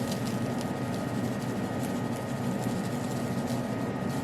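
A steady fan-like hum, with a few faint light rattles of seasoning being shaken from a shaker onto a raw burger patty.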